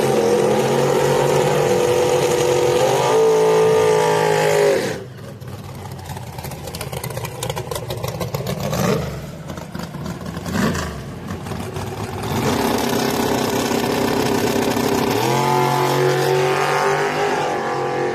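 A drag-racing pickup's engine revving hard: held at a steady high rev, then climbing and cutting off about five seconds in. After a quieter spell with a few short revs, it holds high revs again from about twelve seconds and climbs as the truck launches.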